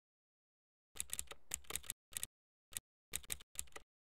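Computer keyboard typing: a quick run of keystrokes about a second in, then a few shorter bursts and single key presses, stopping shortly before the end.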